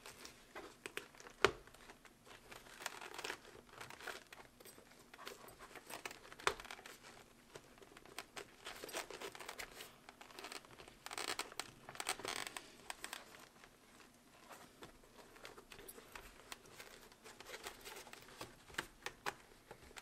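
Hands working a motorcycle helmet's cheek pad and fabric liner into place: irregular rustling and crinkling of padding, with scattered small clicks and one sharper click about a second and a half in.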